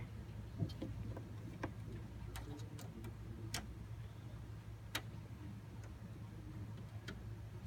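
Scattered light clicks and taps from hands handling computer parts and cables during assembly, irregular and a second or so apart, over a steady low hum.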